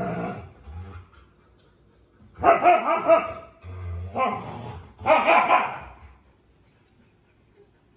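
Husky puppies barking as they play: one short bark at the start, then three longer barking calls close together in the middle.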